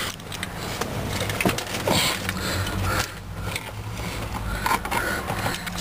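2000 Jeep Grand Cherokee engine idling steadily, heard as a low hum inside the cabin, with a few light clicks from handling.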